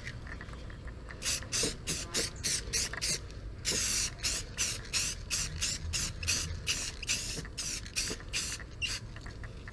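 Aerosol can of black automotive enamel spray paint hissing out in short bursts, about two or three a second, with one longer burst about four seconds in.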